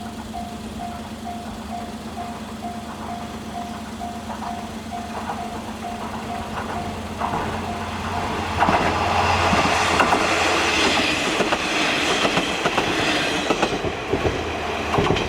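Level crossing alarm ringing at about two strokes a second while a KiHa 47 diesel railcar approaches, its engine droning low. About eight seconds in, the railcar passes, loud, with wheels clacking over the rail joints.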